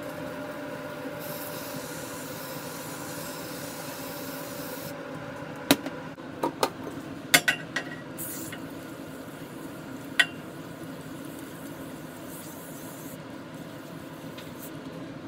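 Aerosol sprays hissing: a long spray of WD-40 through its straw nozzle for about four seconds, then two shorter sprays of PB B'laster later on. In between come several sharp clicks and knocks, over a steady background hum.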